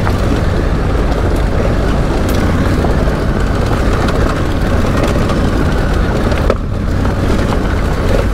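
Motorcycle under way: the engine runs steadily under a rush of wind over the microphone, with a brief dip about six and a half seconds in.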